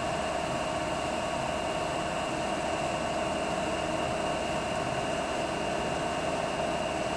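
CNC lathe spindle running steadily at 1000 rpm while the tool takes a light skim cut on the workpiece's diameter: a constant mechanical hum with a steady whine.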